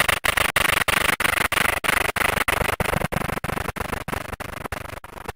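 A loud, steady hissing noise, strongest in the first couple of seconds and then slowly fading.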